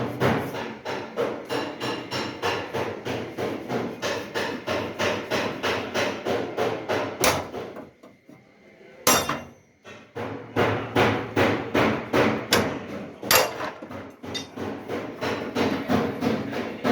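Hammer beating car body metal in quick, steady blows, about four a second, with a pause of about a second just after the middle.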